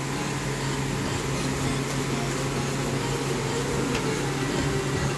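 A steady low hum, with a faint click about four seconds in.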